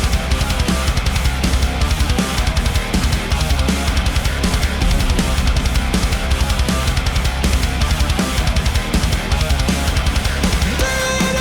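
Heavy metal music with guitars and fast, driving drums.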